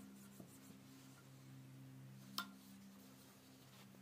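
Near silence with a faint steady low hum, broken by one sharp click a little past halfway through.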